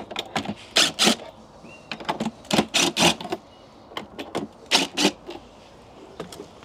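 DeWalt 18V cordless drill run in short bursts, each a fraction of a second, backing out the screws that hold the plastic cover of an electrical enclosure.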